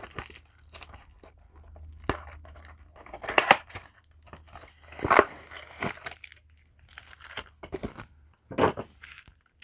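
Foil booster-pack wrappers crinkling and tearing as trading cards and packs are handled, in irregular short rustles and crackles.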